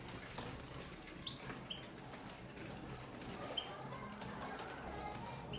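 A few short, separate chirps from caged European goldfinches over faint rustling and light clicks.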